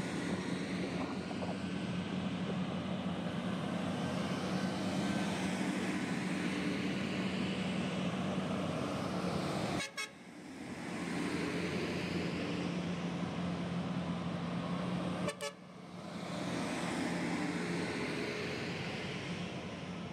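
Large mining haul trucks' diesel engines droning steadily as they drive by, with a strong steady low tone. The sound drops out briefly twice, about ten and fifteen seconds in.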